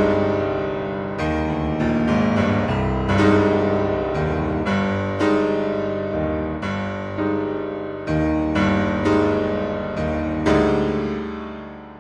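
Solo keyboard music in a piano-like style: a slow sequence of struck chords, each ringing out and fading before the next, about one every half second to second.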